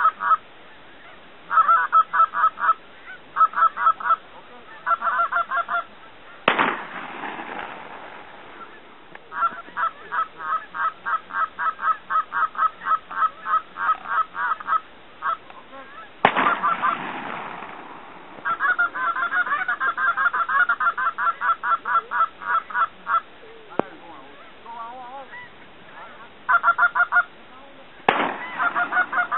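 Canada goose honks in quick, regular runs of about three to four a second. Three sharp shotgun blasts, each trailing off in an echo, come about six seconds in, about sixteen seconds in, and near the end.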